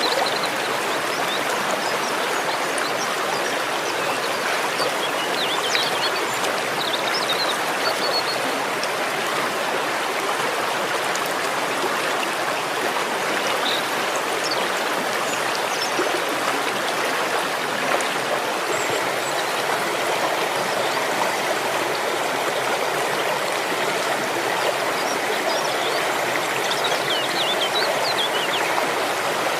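Waterfall: water falling and rushing in a steady, even roar of noise that never lets up.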